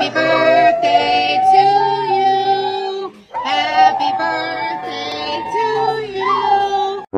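Pit bull-type dog howling in long, drawn-out notes: two long howls with a short break about three seconds in.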